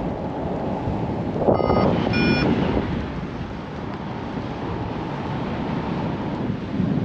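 Steady wind buffeting the microphone, with two short electronic beeps about a second and a half in, the second higher in pitch than the first.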